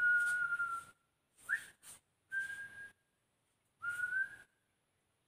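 A person whistling four short notes with gaps between: a held note, a quick upward slide, a steady note, and a slightly rising note near the end.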